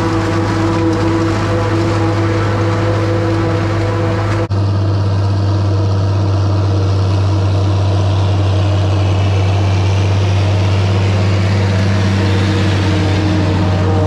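International 1256 tractor's diesel engine and the New Holland 790 forage harvester it pulls, running under load while chopping standing corn: a loud, steady drone. The sound shifts abruptly about four and a half seconds in.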